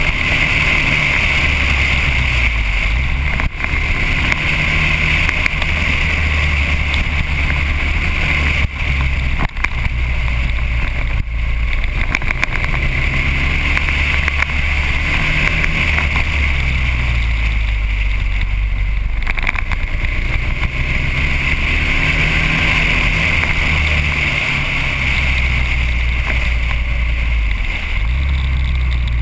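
Motorcycle engine running under way, its revs rising and falling with the bends and gear changes, with steady wind noise on the microphone.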